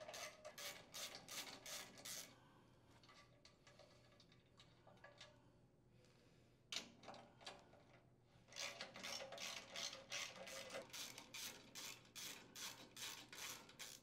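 A socket ratchet clicking in quick runs, about four clicks a second, as engine mounting bolts are unthreaded. It pauses in the middle, where there is one sharper click, then clicks on steadily again from about a third of the way before the end.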